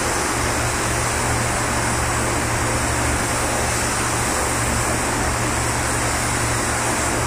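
Compressed-air paint spray gun spraying primer with a steady loud hiss, over a low steady hum of the spray booth's ventilation fans.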